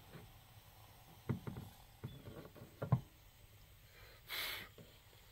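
Light knocks and clicks from a Coleman Peak 1 stove and its fuel canister being handled, then a short hiss lasting about half a second, a little past four seconds in.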